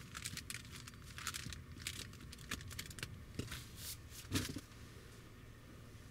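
Small handling sounds inside a car: rustling, crinkling and light clicks, with a louder thump about four seconds in, then only a steady low hum.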